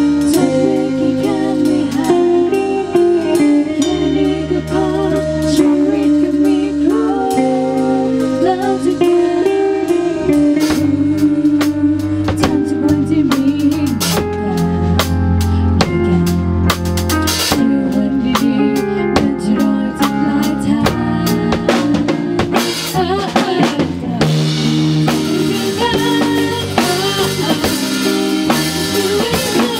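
Live band rehearsal: a drum kit, electric keyboard and two female voices singing a Thai pop song, the singing rather soft in the mix.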